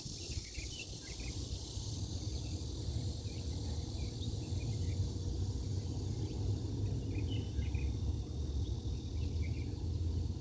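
Outdoor garden ambience: a steady high insect hiss over a low rumble, with scattered clusters of short high chirps.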